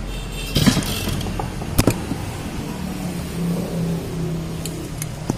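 Tanika brush cutter engine running in a short, unsteady burst, with a sharp knock about two seconds in and a click near the end. It starts only briefly on carburettor cleaner and then dies, the sign of a fouled carburettor.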